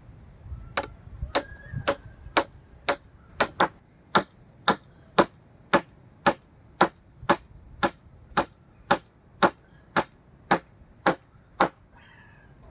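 Hammer driving nails into timber: a steady run of about twenty blows at roughly two a second, stopping about a second before the end.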